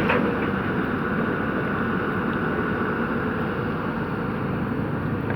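Excavator's diesel engine running steadily under a constant hum.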